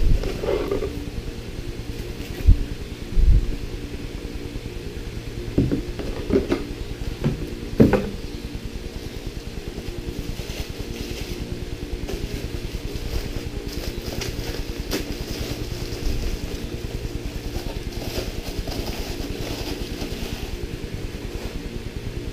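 Knocks and thumps as a boxed PC power supply is lifted out of its cardboard packaging, then the plastic bag around it crinkling as it is unwrapped, over a steady low hum.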